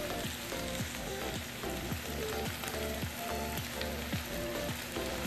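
Adobo sizzling in a frying pan on a gas stove, a steady crackling hiss, under background music with a steady beat.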